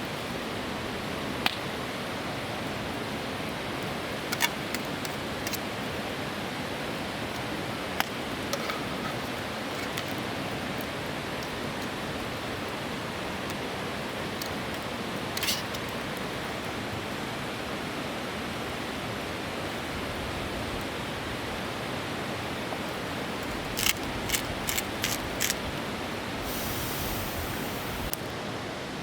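Steady rushing of a flowing river, with a few sharp clicks and taps over it and a quick run of clicks near the end.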